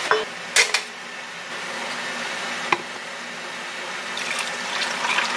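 Iced coffee poured from a glass mason jar into a plastic tumbler, a steady filling sound. A short sharp clatter comes about half a second in and a single click near the middle.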